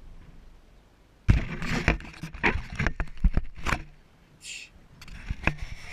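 Handling noise from a camera being picked up and moved close to the microphone: a burst of knocks, bumps and rubbing beginning about a second in, then a short hiss and a few sharp clicks near the end.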